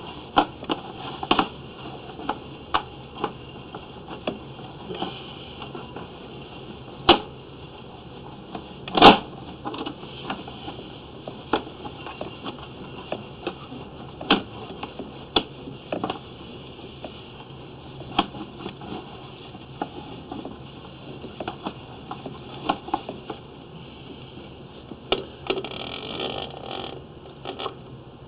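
Irregular sharp clicks and knocks over a steady high hiss while a drain inspection camera works along a sewer line, with two louder knocks about a third of the way in.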